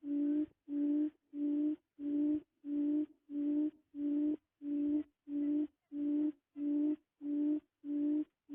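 A low hooting note repeated at an even pace, about five notes every three seconds, each note held about half a second with a short silence between.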